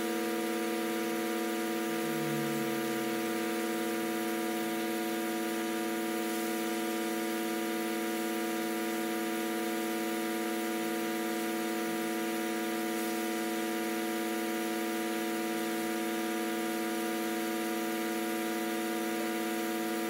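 Microdermabrasion machine's suction pump running with a steady electric hum.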